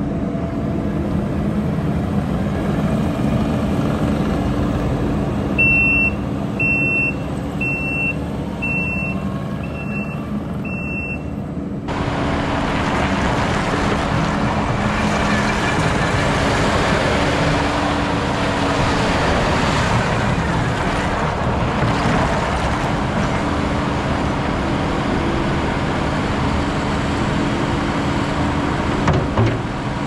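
Kubota SVL95-2S rubber-tracked skid steer with its 96 hp Kubota diesel running steadily as it drives about, with six reverse-alarm beeps about a second apart while it backs up. About twelve seconds in, the sound turns fuller and noisier.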